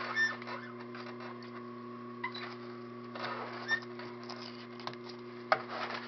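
Sewing machine running, backstitching over velcro tape to lock the end of the seam, with a steady motor hum and fine stitch ticks. One sharp click about five and a half seconds in.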